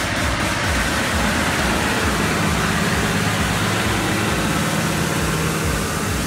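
Large farm tractor's diesel engine running steadily under load while pulling a mounted plough through the soil.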